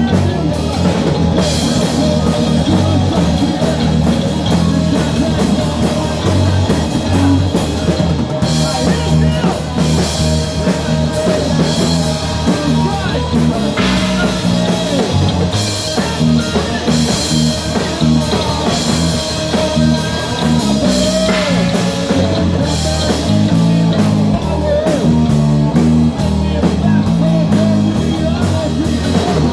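Live heavy metal band playing: electric guitar, bass guitar and drum kit with cymbals, with a singer on vocals.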